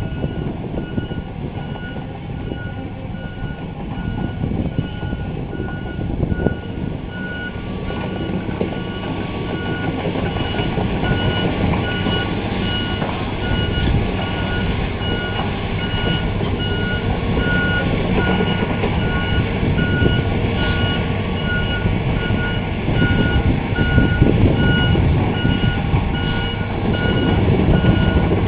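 Backup-style alarm beeping steadily and evenly over the diesel engine and track noise of a Hitachi hydraulic excavator moving on its tracks. The machine rumble grows louder toward the end as it comes closer.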